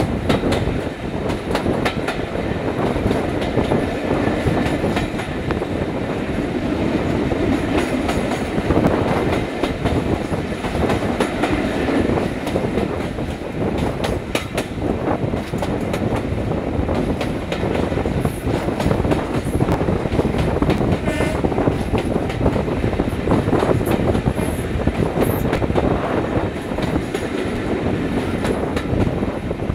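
Class 26 diesel-electric locomotive D5343 (26043) hauling a passenger train at speed. Its Sulzer six-cylinder diesel engine runs steadily under load, mixed with the clickety-clack of the wheels over rail joints.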